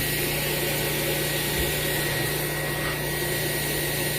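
Air supply blower for a homemade charcoal furnace, running steadily with a constant high whine over a low hum, switched on to test it.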